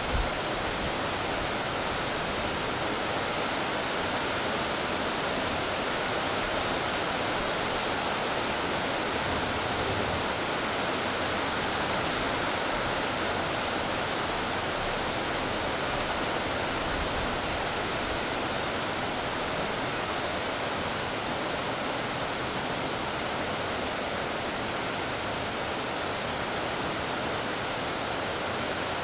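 Steady rain falling on a wet tiled balcony floor and concrete balustrade, an even hiss with faint scattered drip ticks. A single brief knock sounds right at the start.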